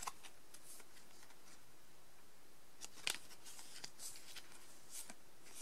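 A stack of thick, credit-card-sized photo cards being handled and slid against one another: faint rustling with a few light clicks.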